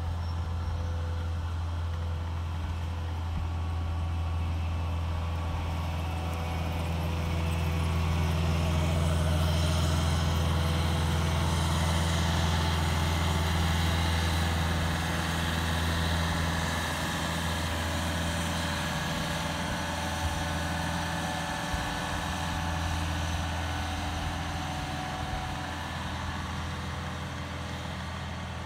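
Cat 299D compact track loader's diesel engine running steadily under load as it works a box blade across sand. It grows louder as the machine comes close, about a third of the way in, and fades as it moves away.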